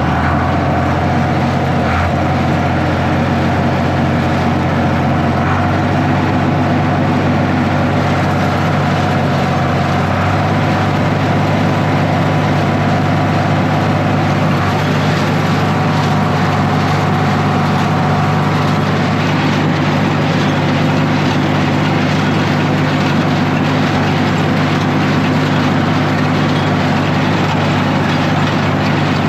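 Tractor engine running steadily under load, pulling a New Holland 275 square baler through hay, with the baler's machinery running along with it.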